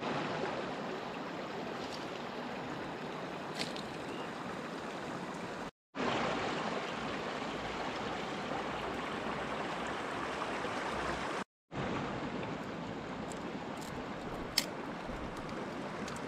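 River water rushing steadily, cut off by two brief gaps, with a couple of sharp ticks, one of them about a second and a half before the end.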